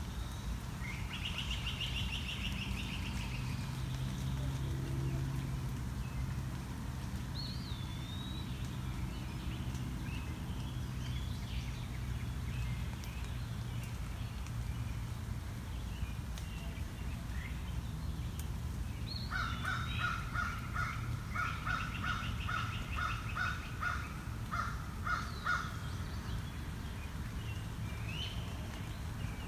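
Woodland birds calling over a low steady hum: short whistled calls and a brief trill, then, about two-thirds of the way in, a run of about a dozen loud repeated calls at roughly two a second.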